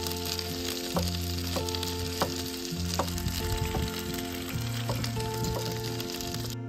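Food frying in a hot pan: a steady sizzle with a few sharp pops, which cuts off abruptly near the end. Soft background music plays throughout.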